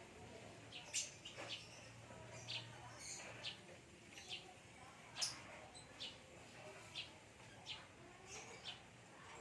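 Fischer's lovebirds, a green bird and a parblue mutation, giving short, sharp chirps at irregular intervals, about one or two a second.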